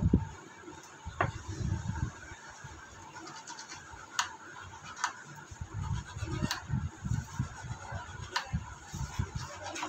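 Thin metal blade scraping rust off a small battery contact tab from a digital hanging scale: scratchy rubbing with about five sharp metallic clicks spread through, over dull handling bumps.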